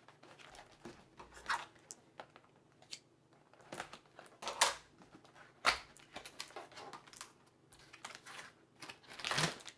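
Slim cardboard box being opened and handled by hand: scattered soft scrapes and rustles, with a few louder ones spread through, as the flap is worked open and the plastic-wrapped contents are slid out near the end.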